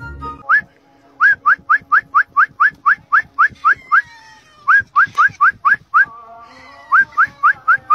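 Rapid short rising whistles, about four a second, in three quick runs separated by brief pauses, over faint background music.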